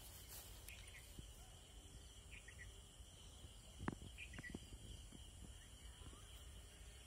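Near silence with a faint, steady high insect drone, and a few faint short taps about four seconds in.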